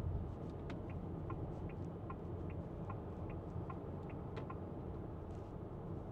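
Turn-signal indicator ticking in the cabin of a 2024 Renault Grand Koleos, about two and a half even ticks a second. It starts a little under a second in and stops after about four seconds, over a steady low road hum.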